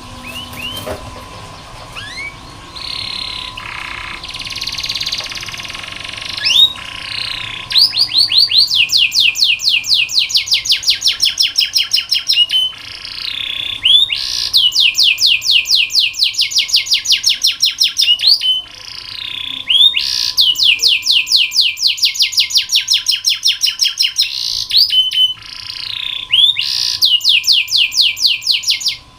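Domestic canary singing: long rolls of rapidly repeated identical notes, about seven or eight a second, broken by short pauses and separate chirps.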